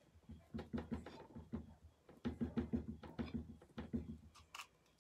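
Paintbrush dabbing paint onto a board on a wooden table: runs of rapid soft taps, about six to eight a second, with a short pause between them. One sharper click comes near the end.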